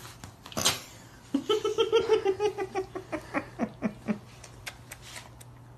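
A person giggling under a hood: a run of quick, high laughs, about five a second, that fall in pitch near the end, after a brief rustle about half a second in.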